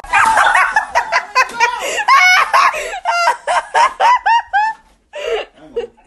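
Seagull calling loudly inside the house: a quick run of about eight yelping calls, each rising then falling in pitch, through the middle of the stretch.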